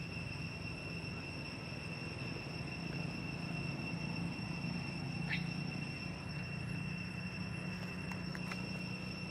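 Steady drone of insects in the forest, two high continuous tones over a low steady hum, with one short chirp about five seconds in and a few faint clicks near the end.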